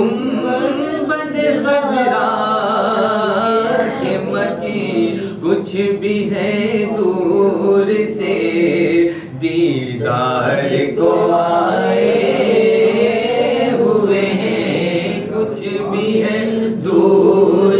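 A man reciting a naat unaccompanied: one male voice singing long, ornamented phrases with the pitch bending up and down, with a short breath break about nine seconds in.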